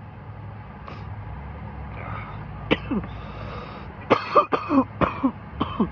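A man coughing: two harsh coughs a little under three seconds in, then a rapid fit of coughs over the last two seconds.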